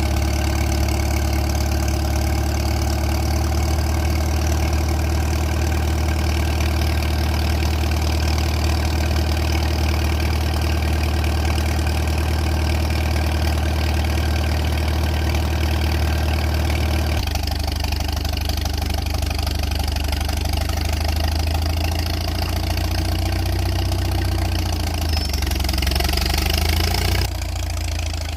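Farmall M tractor's four-cylinder engine running steadily at idle. Its tone changes abruptly twice, about two-thirds of the way through and again near the end.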